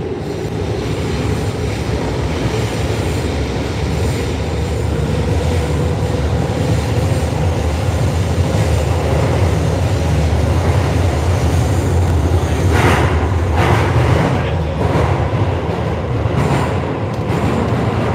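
Electric commuter train running through a tunnel, heard from inside the car: a steady, loud rumble of wheels on rail with a faint whine held in the first half. About thirteen seconds in, several louder clatters cut through.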